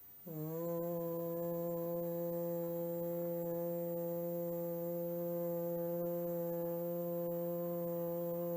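A person's sustained hum with lips sealed and the tongue rolled back to the middle of the upper palate, the third phase of a four-phase humming practice. It starts about a third of a second in, settles within a moment, and is then held on one steady pitch.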